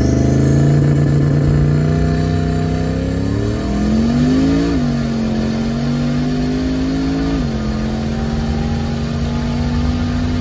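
Turbocharged LS V8 of a Chevrolet Malibu wagon driving, heard from inside the car. About four seconds in the engine note climbs and then drops as the transmission shifts up. It climbs gently again and drops with another shift about seven seconds in, then holds steady.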